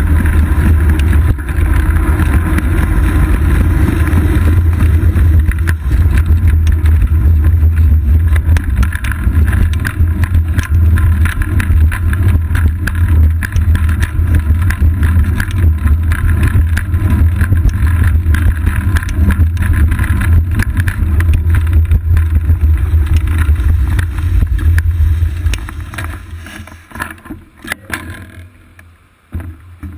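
Wind buffeting and road vibration on a GoPro Hero 2 mounted on a moving bicycle's seat post, a loud, steady low rumble. It falls away sharply near the end, leaving faint noise and a few clicks.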